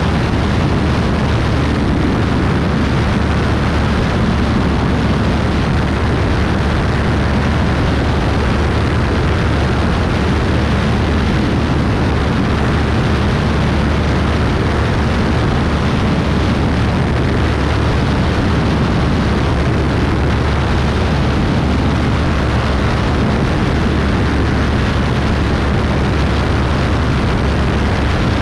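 Beechcraft Bonanza B35's flat-six piston engine and propeller running steadily in flight, a low drone mixed with a constant rush of air noise.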